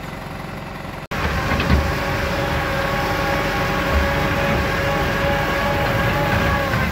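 Farm tractor's diesel engine running steadily as it tows a trailer through flooded mud, heard from the trailer behind it. It is a quieter hum at first, then after a sudden cut about a second in it is louder, with a steady droning note and a few low thuds.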